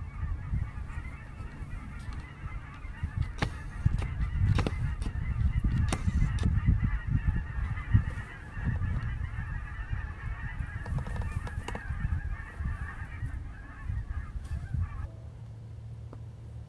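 A large flock of geese honking in flight, many calls overlapping into a steady clamor, over a low uneven rumble with a few sharp knocks. The honking stops about fifteen seconds in.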